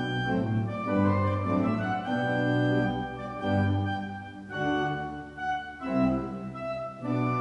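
Closing music on an organ, playing sustained chords that change every second or so.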